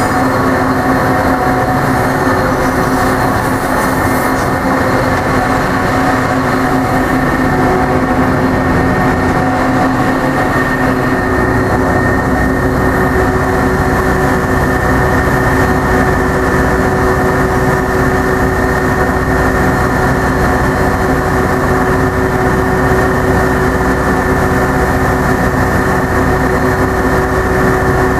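Metra bilevel commuter train rolling slowly away through the station's switches, its wheels running over the rails, with a steady drone of an idling diesel locomotive on the next track.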